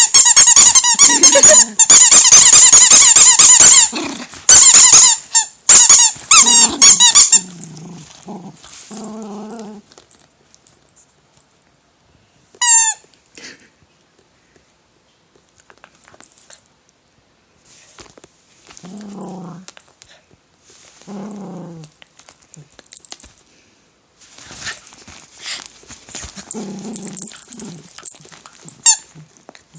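A dog biting a squeaky bread-shaped toy: a fast, loud run of squeaks for the first several seconds, then only a squeak now and then. Short, low growls come between the squeaks.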